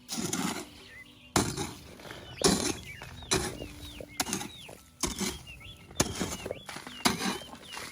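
Repeated hard strikes, about one a second, with birds chirping between them.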